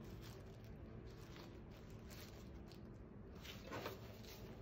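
Faint rustling and light taps of a planner in a clear plastic cover-on-cover being handled on a table, with a slightly louder rustle as it is lifted and turned over about three and a half seconds in.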